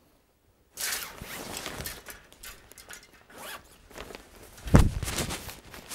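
Clothing rustling as a black sequined jacket is handled and pulled on, starting just under a second in, with a dull low thump about three-quarters of the way through.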